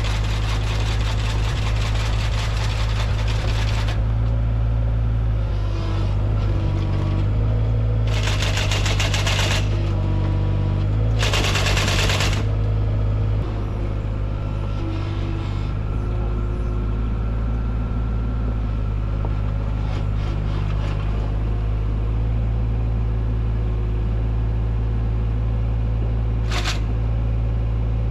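Mini excavator's engine running steadily under hydraulic load, with the excavator-mounted finger-bar sickle mower chattering in bursts of a few seconds as its knife runs back and forth, and a short burst near the end.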